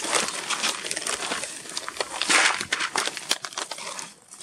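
Dry carp bait being handled: pellets and particles rattle and clatter in plastic buckets and a scoop, with plastic bags rustling. It is a run of quick clicks, with a louder pour about two and a half seconds in.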